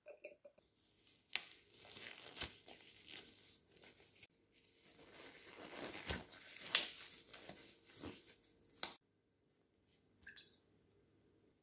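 Crinkling and rustling of a paper sandwich wrapper being handled, then of white disposable gloves being pulled on, full of sharp crackles. It cuts off abruptly about nine seconds in, leaving only faint sounds.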